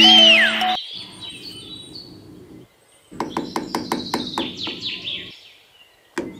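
Music ends about a second in, followed by birds chirping. A small hammer taps popsicle-stick fence pieces in a quick run of light knocks, about five a second, with two more taps near the end.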